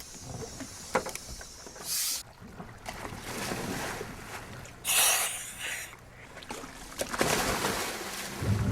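Water and wind noise around a small boat, with a few short rushes of noise and a couple of sharp knocks. Music comes in near the end.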